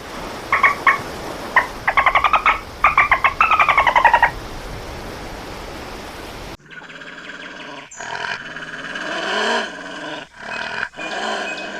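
Animal calls: several short bursts of a rapid clicking chatter over a steady hiss, then, after an abrupt cut about six and a half seconds in, a different animal calling with pitched, wavering cries.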